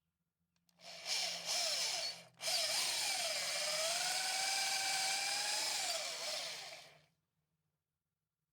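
Electric power tool working willow wood. It starts about a second in, cuts out briefly, then runs steadily for about four and a half seconds, its pitch dipping and rising as it works, before winding down.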